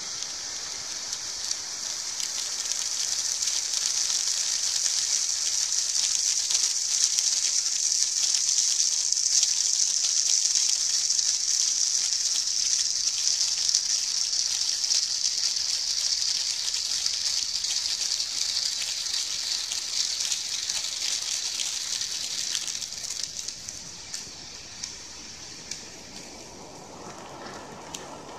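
Jet fountain firework burning: a loud, steady high hiss of spraying sparks that swells over the first few seconds and holds. About 23 seconds in the hiss drops to a fainter, lower rushing, with a few sharp crackles near the end.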